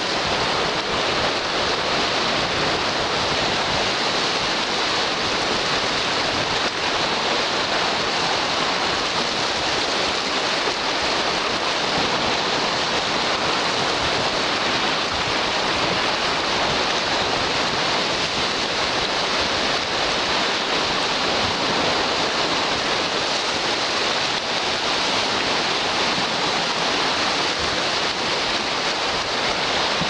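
Small sea waves breaking along the shore and washing over rocks at the water's edge, a steady surf wash with no single loud crash standing out.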